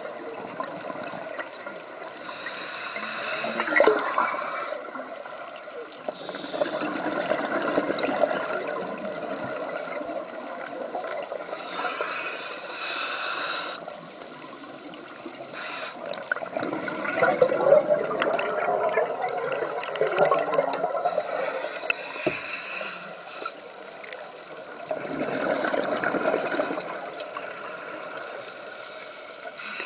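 Scuba diver breathing through a regulator: a hissing inhale every several seconds, each followed by a longer bubbling, gurgling exhale.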